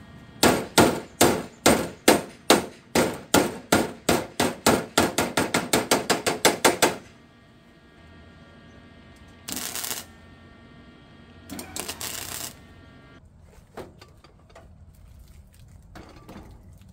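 Hammer blows on the sheet-metal door of a 1948 Willys, about two dozen ringing strikes that come faster toward the end. Two short hisses follow, then a few faint knocks.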